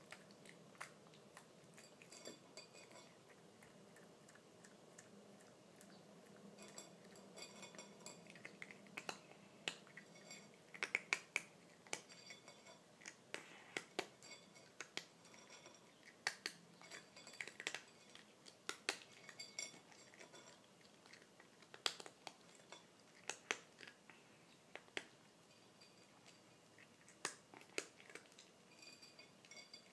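A cat eating dry kibble from a small plate: irregular sharp crunches and clicks of chewing, thickest and loudest through the middle, with the odd click of food or teeth against the plate.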